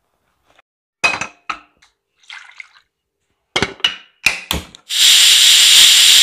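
Metal clinks of a pressure cooker's lid and whistle weight being handled, then, about five seconds in, the pressure cooker's whistle blowing off steam in a loud, steady hiss that lasts under two seconds.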